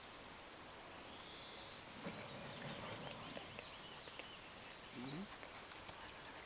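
Quiet outdoor ambience with faint distant bird chirps, and one short low rising sound about five seconds in.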